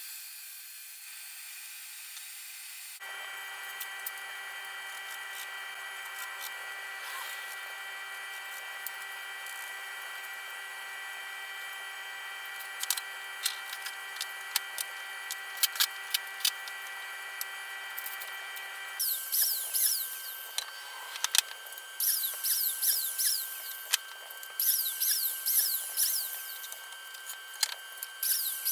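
A power tool's motor whines steadily with a few clicks, and the whine stops a little past halfway. Wooden boards and blocks then clatter and knock repeatedly as they are handled and set down on a workbench.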